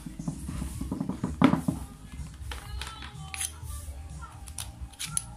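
Background music over the clicks and knocks of a screwdriver working screws out of an angle grinder's plastic motor housing, with a sharp knock about a second and a half in.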